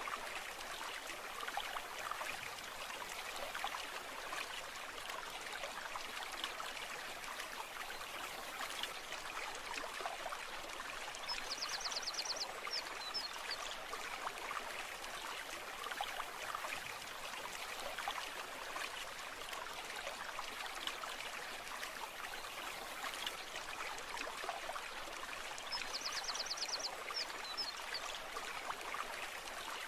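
Brook running: a steady rushing trickle of flowing water. Twice, about fourteen seconds apart, a short high trill of rapid clicks lasting about a second sounds over it.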